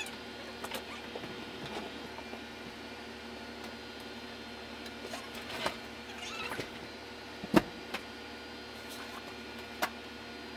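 Household items and furniture being moved by hand: scattered knocks, bumps and light scrapes over a steady hum. The loudest is a sharp knock about seven and a half seconds in, with another near the end.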